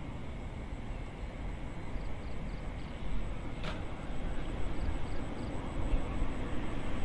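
Road traffic rumble, growing louder near the end as a vehicle approaches, with a single sharp click about halfway through.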